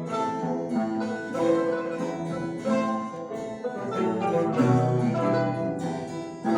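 Mandolin ensemble playing a piece: plucked strings carrying a melody of held notes over a lower bass line.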